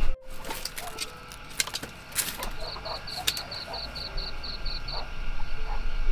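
Chickens at a bamboo coop: a few short soft clucks and light clicks, with a rapid run of about ten high chirps in the middle and a low rumble building toward the end.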